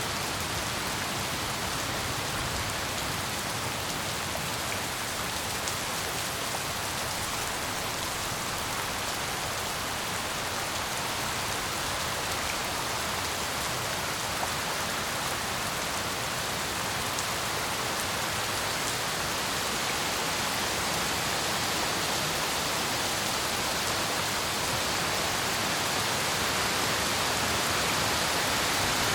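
Steady heavy rain falling, a dense even hiss of drops on surfaces, growing slightly louder toward the end.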